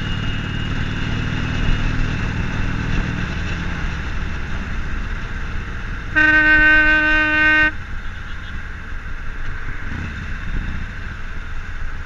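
Vehicle horn sounding once, a single steady note held for about a second and a half about six seconds in, the loudest sound, over the running Harley-Davidson Forty-Eight's air-cooled V-twin engine and wind noise while riding.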